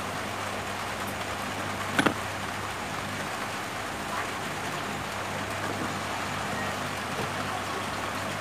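Steady hiss with a faint low hum underneath, and a sharp double tap about two seconds in as the metal IC stencil is handled on the work mat.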